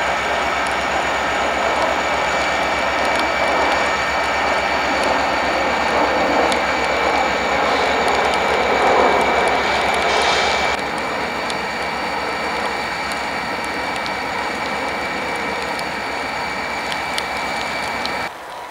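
Diesel freight locomotives passing close by with their engines running loud and steady under power. The sound swells, then drops a step about eleven seconds in.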